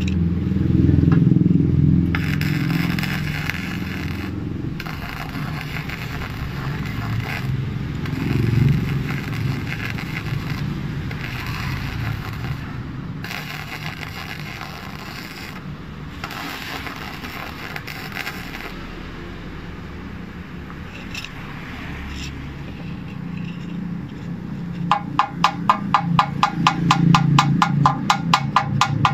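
Flux-core MIG welding arc crackling and sputtering in runs of a few seconds with short breaks, stopping about eighteen seconds in. Near the end, rapid metallic tapping on the weld, about five strikes a second.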